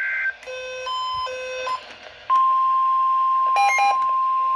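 Emergency Alert System weather-radio alert: the last of the warbling header data burst, then a second of buzzy electronic beeps, then about two seconds in the steady warning alarm tone starts and holds, signalling that a warning (here a special marine warning) is about to be read. A short buzzy chirp sounds over the tone near the end.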